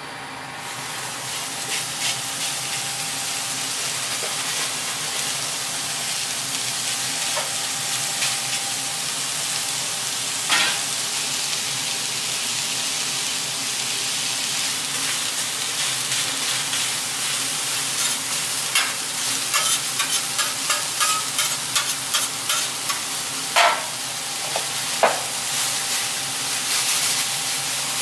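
Sliced onions and green peppers sizzling on a hot flat-top griddle, the sizzle swelling over the first couple of seconds and then holding steady. In the second half a run of short, sharp clicks and scrapes sounds over it as the vegetables are moved about on the steel.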